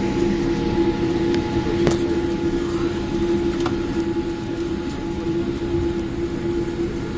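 Steady cabin hum inside a parked Boeing 787-8 Dreamliner, the air conditioning running with a constant drone tone over a low rumble. A few light clicks and knocks, around two and four seconds in, come from passengers moving about.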